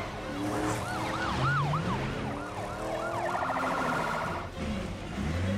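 Several police car sirens sounding together in quick rising-and-falling yelps, with a stretch of rapid warbling about three seconds in, over car engines revving.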